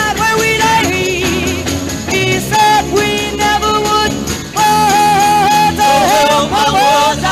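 Live 1960s psychedelic folk-rock band playing at full volume: a lead line of long held notes that bend and waver over bass and drums.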